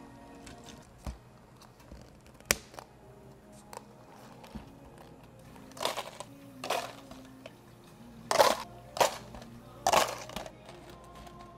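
Ice cubes rattling into clear plastic cups in several quick rushes, the loudest about eight and a half and ten seconds in, after a few sharp clicks of plastic cups being handled. Soft background music underneath.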